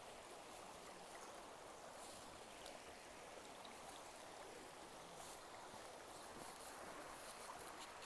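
Faint steady rush of a creek flowing over rocks, with light, scattered crunches of footsteps on dry fallen leaves.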